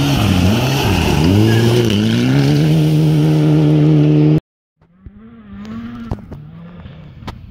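Rally car engine on a gravel stage, revs dropping and climbing several times through the corner, then held high and steady as the car goes past close by. The sound cuts off abruptly a little over four seconds in. After that a much fainter engine revs in the distance, with a few sharp clicks.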